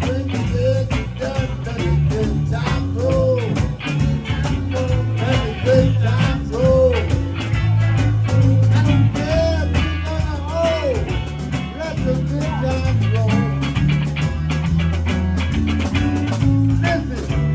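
Live blues band playing: a walking bass line and drums under a lead line of repeated bent notes that swoop up and back down.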